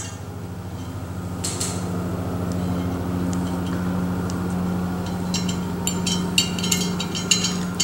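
A motorcycle spoke nipple being turned by hand onto a steel spoke's threads, giving a run of light metallic clicks in the last few seconds, over a steady low hum.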